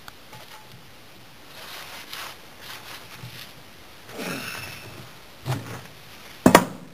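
Scuffing and scraping on gravel and brick as a refractory kiln slab is carried off, then a dull thud and, near the end, a single sharp, loud clack with a short ring as the slab lands on hard brick.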